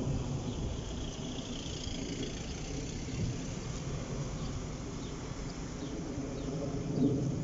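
Low, steady engine rumble while the crossing is closed, with faint short high chirps now and then.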